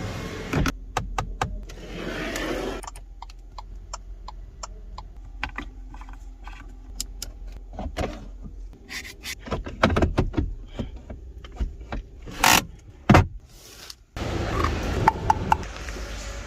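Toyota Fortuner fittings being worked, giving a run of sharp clicks with rubbing and scraping. Two louder knocks come about twelve and a half and thirteen seconds in.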